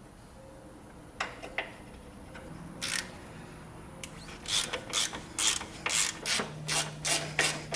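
Hand ratchet with a 3/8-drive Allen key socket backing out a brake caliper bolt. A few separate clicks come first, then from about halfway a quick run of ratchet strokes, about three a second.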